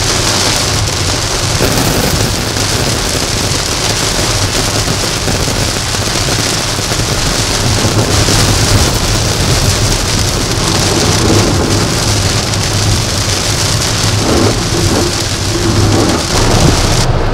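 Heavy rain hitting a car's windshield and roof while driving: a dense, steady hiss with a low rumble underneath.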